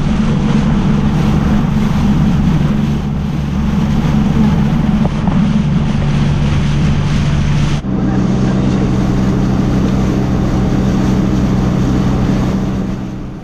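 Motorised outrigger bangka's engine running steadily under way, with wind on the microphone and rushing water. The sound breaks off briefly about eight seconds in and picks up again at a slightly different pitch.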